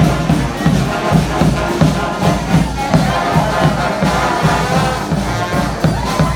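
Live street-band music: a steady drum beat with held melody notes played over it.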